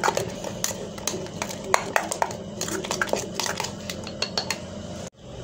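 Metal spoon clinking and scraping against a stainless steel bowl in quick, irregular strokes while stirring a runny egg mixture. The sound cuts off abruptly near the end.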